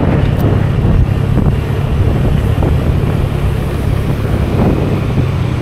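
Wind rushing over the microphone of a moving motor scooter, over the steady low drone of its engine cruising along the road.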